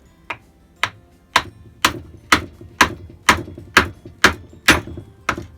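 Hammer blows through a block of wood, driving a part onto the wood lathe's shaft: a steady series of about eleven knocks, roughly two a second, starting faint and growing louder, each with a short ring.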